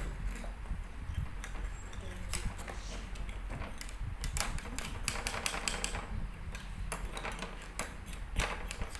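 Irregular light clicks and taps, some in small clusters, over a low steady hum.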